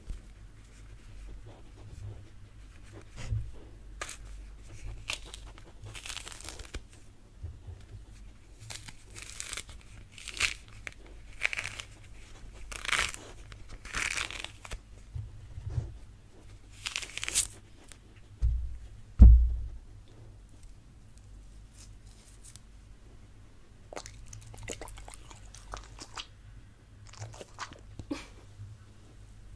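Mandarin peel being torn off by hand in a series of short tearing, crackling strokes, with two low thumps a little past the middle and softer crackles near the end as the fruit is pulled apart.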